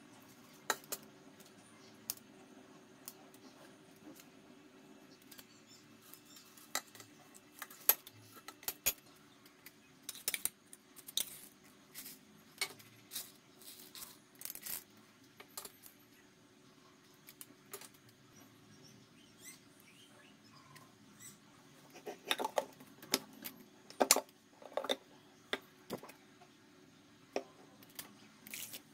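Scattered clicks and clinks of steel kitchenware being handled: a stainless steel plate and mixer-grinder jar knocked by scissors, lid and utensils, with a denser run of louder clinks about twenty-two seconds in. A faint steady hum lies underneath.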